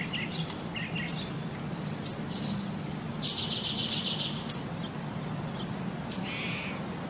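Short, sharp, very high chirps come about once a second, with a buzzy trill twice, over a low steady hum.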